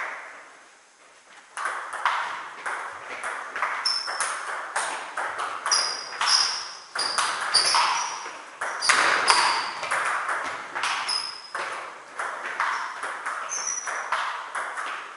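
Table tennis rally: a celluloid ball clicking off rackets and bouncing on the table, several sharp clicks a second, starting after a short lull about a second and a half in. A few short high squeaks are mixed in.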